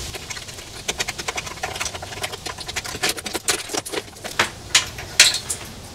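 Irregular clicks, taps and rattles of cables and plastic connectors being handled and pulled free from an inverter's wiring board. The clicks come thickest in the middle, with the sharpest one near the end.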